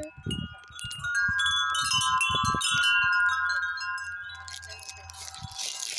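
Metal wind chime ringing: a loud cluster of tones sounds about a second in and slowly fades, with lighter high tinkling above it. Low thumps sound underneath.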